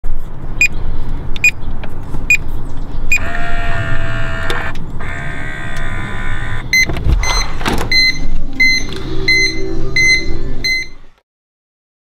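Delaney LP250 digital lever lock: several short beeps as buttons on its keypad are pressed, then a whirring for a few seconds as its motor engages to unlock. A short clatter from the lever and latch follows, then a run of evenly spaced beeps, about two a second, that cuts off suddenly.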